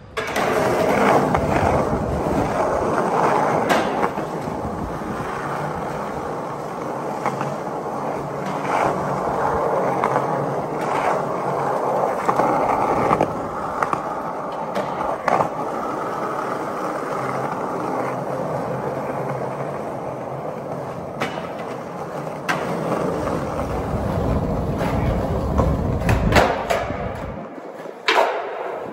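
Skateboard wheels rolling on concrete, a steady grinding rumble, with several sharp clacks of the board striking curbs and ground during curb tricks.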